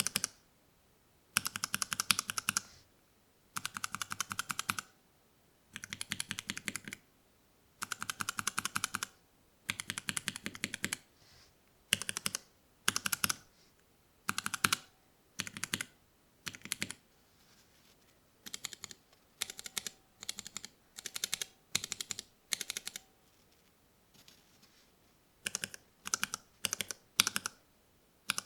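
Kailh Pro Purple tactile mechanical switches being typed in short bursts of rapid keystrokes, each about a second long with pauses between. The bursts in the second half are sparser and quieter. This is a sound test comparing the switches stock and lubed.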